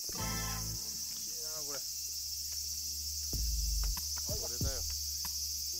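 Insects, likely cicadas, shrilling in a steady, unbroken high-pitched chorus.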